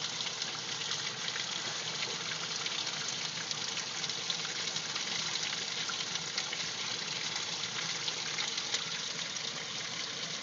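Water rushing and spraying steadily from a live, pressurized water line that is open while a coupling is fitted onto it, heard as an even hiss.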